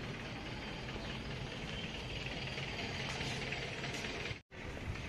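Street ambience with a steady low hum of an idling vehicle engine. It cuts out abruptly to silence for a moment about four and a half seconds in.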